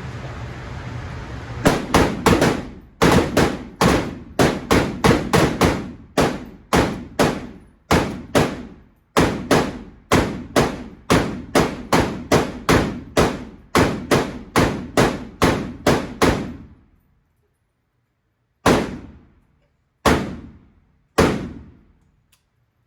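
Rifle fired in rapid succession, about two shots a second for some fifteen seconds, each shot ringing off briefly; after a pause come three more shots, about a second apart.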